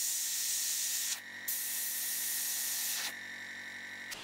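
Airbrush hissing as it sprays paint onto a miniature. The spray breaks briefly about a second in, weakens around three seconds and cuts off just before the end.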